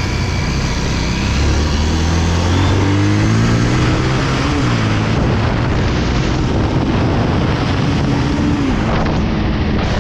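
Bajaj Pulsar 220F single-cylinder engine pulling under way, its pitch rising through the first few seconds, dipping briefly around the middle and falling away near the end as the throttle eases. Wind rushes over the helmet-mounted microphone throughout.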